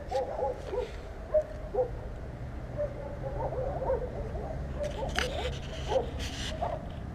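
Metal spreader scraping body filler across a car's rear wheel arch, with several harsh scraping strokes about five to six and a half seconds in. Short, low warbling squeaks run throughout.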